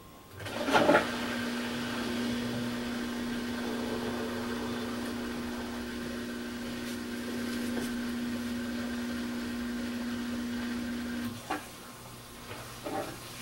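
Samsung WD136 washer-dryer's direct-drive motor turning the drum to weigh the load before the wash: a steady hum with one held tone, with a brief louder rush under a second in as it starts. It stops about eleven seconds in, followed by a few faint clicks as the machine sets its wash time.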